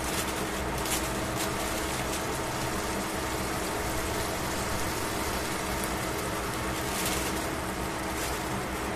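Slice of pork frying in a stainless steel pan: a steady sizzle, with a couple of louder crackles about a second in and near the end.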